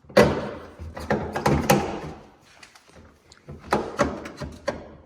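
A socket wrench clicking and knocking on a Nissan 240SX's taillight mounting nuts, with metal clattering, in two busy bursts: one at the start and one about three and a half seconds in.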